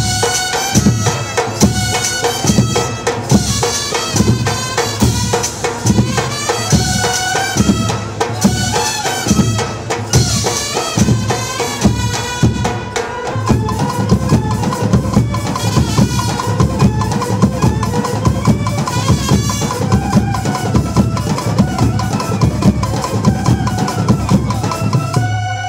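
Brass band playing a melody on its horns and reeds over a steady drum beat, about two beats a second.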